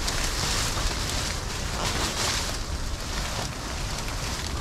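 Leaves and branches rustling and scraping as people push through dense scrub on foot, with crackling steps in leaf litter. The crackly rustling swells in waves, and a low rumble lies under it.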